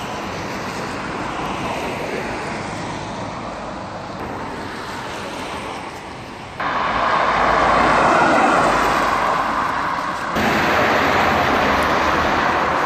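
Performance cars' engines and exhausts as they pull away and drive past on a wet road, in three short clips cut together. The sound changes abruptly about six and a half and ten seconds in, and the middle clip is the loudest.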